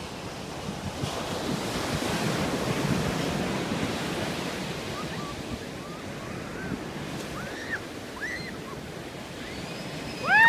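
Ocean surf washing up a sandy beach, a steady rush that swells as a wave breaks and runs in about two to four seconds in.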